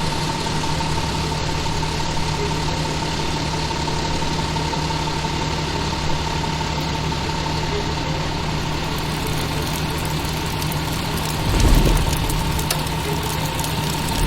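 Fire truck engine running steadily, with a steady hum and whine over a constant rush of noise, as water is called for at the fire. A low thump comes about twelve seconds in.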